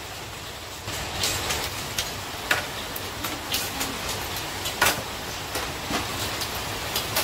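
Irregular clicks and light knocks from handling a flat-screen TV and its metal wall-mount bracket, the loudest about five seconds in, over a steady low rumble.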